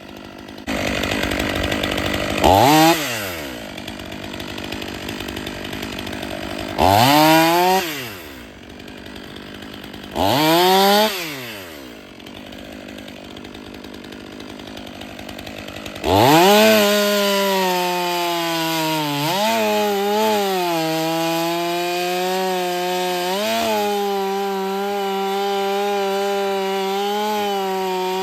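Stihl MS 500i chainsaw revved up and dropped back three times in short bursts, then held at high speed from about halfway on, its pitch sagging briefly now and then as it cuts firewood.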